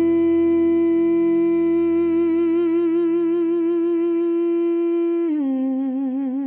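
Background music: a single voice humming one long held note, which begins to waver halfway through and steps down to a lower note near the end.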